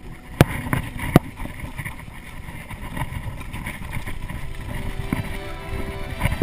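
Mountain bike rolling down a rocky trail, rattling and clattering over the stones, with two sharp knocks about half a second and a second in. Wind rushes over the microphone.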